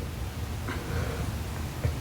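A sleeping young woman's faint breathing, two soft breaths over a steady low hum.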